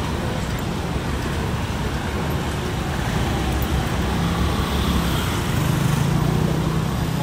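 Daytime city street traffic at an intersection: motor scooters and cars passing in a steady wash of road noise. About four seconds in, a nearby engine's low hum rises and grows louder.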